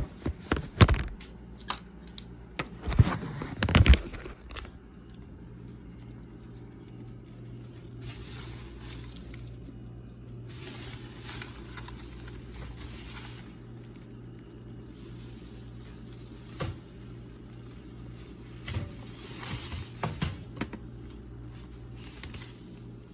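Plastic vacuum-cleaner dust canister being knocked and emptied into a trash can: several loud knocks in the first four seconds, then softer rustling of falling dirt and a few scattered taps.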